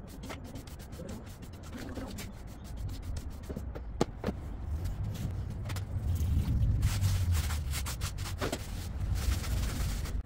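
A stiff-bristled hand brush sweeps sawdust across a plywood workbench in quick strokes. Then a trigger spray bottle squirts a few times and a cloth rubs and wipes the bench top, all over a low background rumble.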